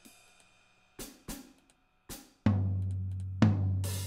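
Sampled acoustic drum kit in a drum sampler plugin, played one hit at a time from controller pads: a few light drum strikes, then two loud low drum hits about a second apart that ring on, and a crash cymbal near the end. Each hit rings out instead of being choked off.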